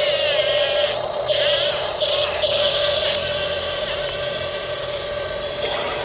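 Steady whine of a radio-controlled model wheel loader's electric drive motor as it drives over gravel.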